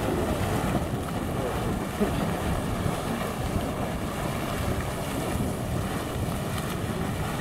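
Geyser vent boiling and gushing, a steady churning rush of bubbling water and escaping steam, with wind buffeting the microphone.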